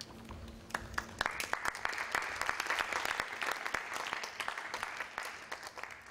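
Audience applause: clapping starts under a second in, swells into dense, steady applause, and fades near the end.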